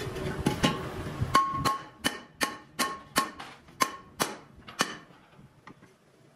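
A hammer striking a steel thresher wheel rim and its centre disc as the disc is knocked into place. There are about ten sharp, ringing metal blows over roughly three and a half seconds, and then they die away.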